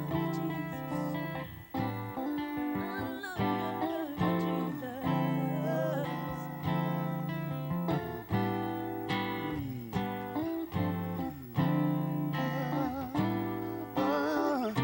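Instrumental break in a slow gospel song: guitar chords struck about once a second over a held low bass, with a wavering melody line above.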